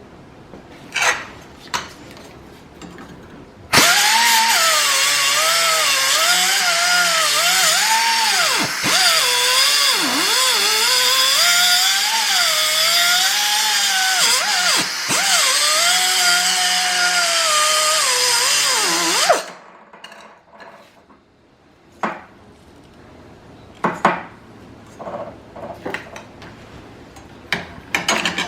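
SP Air SP-7231 flex-head pneumatic cut-off tool with a 3-inch wheel running and grinding metal for about fifteen seconds, starting a few seconds in. Its whine dips in pitch each time the wheel is pressed into the work. Light knocks and clicks of handling come before and after.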